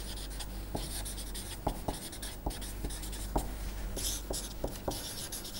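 Felt-tip marker writing on paper: scratchy strokes, broken by short taps as the tip lands, over a steady low hum.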